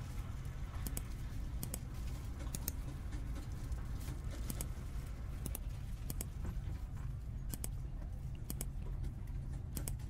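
Computer mouse clicking, single and double clicks about once a second, over a steady low hum.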